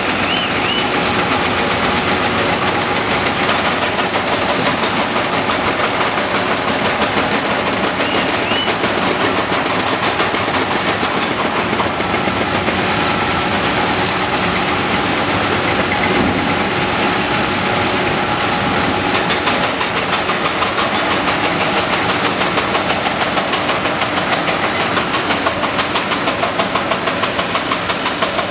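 Caterpillar 330D L hydraulic excavator's diesel engine running steadily under working load as the machine swings its bucket over the dump truck and back.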